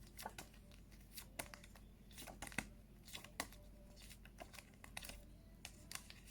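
Near silence broken by faint, irregular rustles and clicks, typical of paper word cards being handled and flipped.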